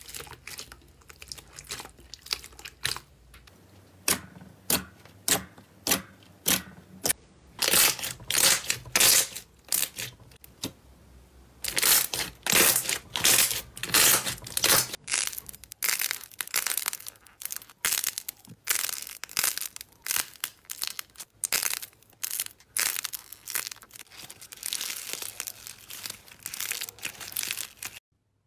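Hands squeezing and kneading slime: a long run of wet squelches, crackling pops and sticky tearing sounds, irregularly spaced, louder in a few clusters of squeezes. The sound cuts off suddenly near the end.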